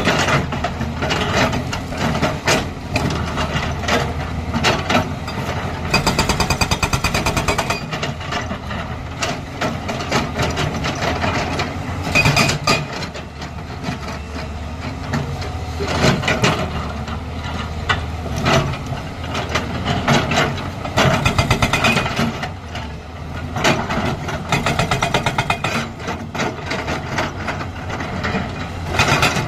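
Hydraulic rock breaker on a JCB tracked excavator hammering stone in bursts of rapid, even blows, over the steady running of the excavator's engine.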